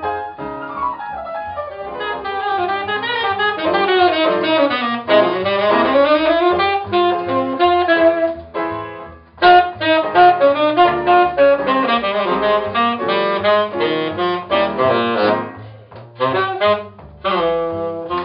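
Live jazz combo: a saxophone plays a solo of fast runs that climb and fall, over a walking double bass and piano. The phrases grow louder after a short break about halfway through.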